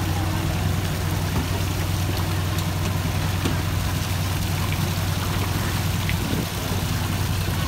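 An engine idling steadily with an even low hum, a few faint ticks over it.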